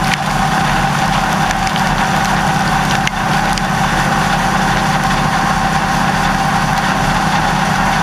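Claas Lexion 740 combine harvesting corn, heard from inside the machine: a loud, steady machinery drone with a constant whine, over the rush of stalks and husks blowing through. A couple of sharp cracks of crop debris striking come near the start and about three seconds in.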